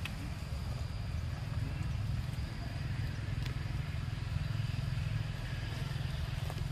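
Steady low rumble that runs unbroken throughout, with a faint, steady high-pitched drone above it and a few faint ticks.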